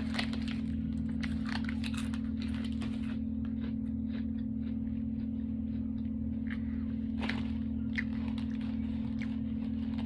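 Close-up eating sounds of a Subway sandwich being chewed: scattered small crackles and crunches, busiest in the first few seconds and again about seven seconds in, over a steady low hum.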